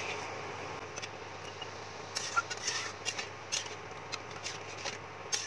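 A spatula stirring thin curry gravy in a metal kadhai, with the liquid sloshing and scattered scrapes and taps against the pan that come more often from about two seconds in. The gravy is being stirred as it heats toward a boil.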